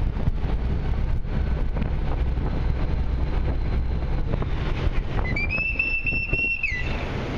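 Steady rumble of a river express boat's engine with wind on the microphone; about five seconds in, one long whistle blast of about a second and a half, rising slightly at the start and dropping at the end. It is a crew member's whistle signal telling the boat's driver how to manoeuvre.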